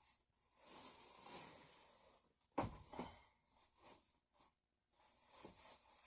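Quiet handling sounds: soft rustling for a second or so, then two sharp knocks about half a second apart, a few faint taps and another brief rustle.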